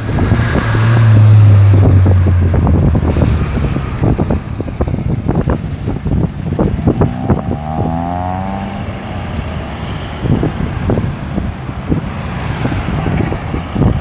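Road traffic passing at a busy roundabout: vehicle engines and tyres, with a loud low engine drone about a second in and another engine rising in pitch as it speeds up near the middle. Wind buffets the microphone throughout.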